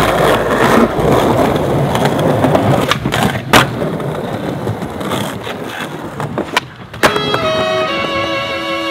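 Skateboard wheels rolling on smooth stone paving with a steady gritty hiss, then sharp clacks of the board about three and three and a half seconds in and a few lighter knocks later. About seven seconds in, a bowed violin melody starts.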